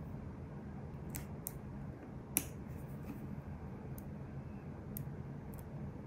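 Metal tweezer tips clicking lightly against a fingernail and a nail sticker as the sticker is placed: about six short sharp ticks, the loudest about two and a half seconds in, over a steady low hum.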